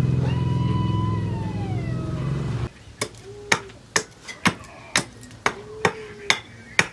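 A machine's steady low hum, with a falling whine over it, cuts off abruptly just before the middle; then a hand hammer strikes metal on the anvil about ten times, roughly two to three blows a second, each blow ringing briefly.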